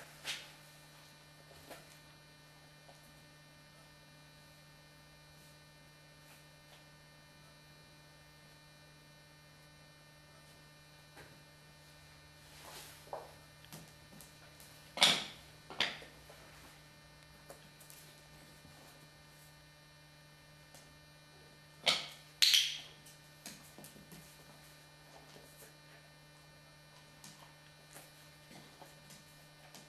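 Steady low electrical hum, broken by a few sharp clicks: one just after the start, two close together about halfway, and two more about three quarters of the way through.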